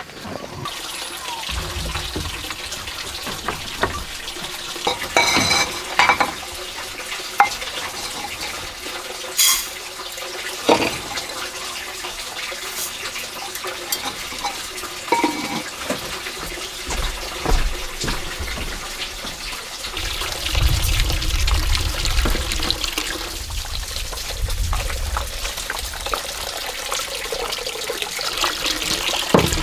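Water running steadily, with a few sharp knocks and clatters.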